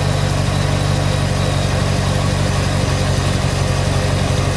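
Chevrolet Corvette C6 Grand Sport's LS3 V8 idling steadily on its newly fitted alternator, with the belt chirp gone. There is a light noise that the owner puts down to the power steering pulley.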